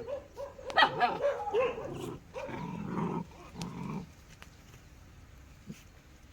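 A dog giving several short barks, then two low growls about three and four seconds in.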